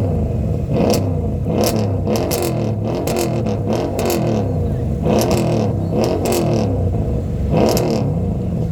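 Mercedes-Benz engine held on a two-step launch limiter, its revs wavering against the limiter, with about ten sharp exhaust pops scattered through it.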